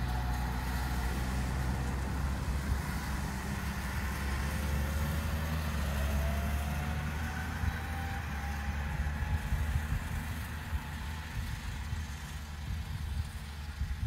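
Self-propelled fertiliser spreader's diesel engine running steadily as it drives across a field spreading, with a faint whine that rises slowly in pitch through the middle.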